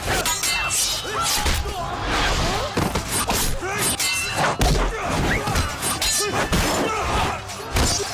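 Fight-scene sound effects: a rapid run of sword clashes that ring briefly, thuds, whooshes and fighters' shouts, laid over dramatic background music.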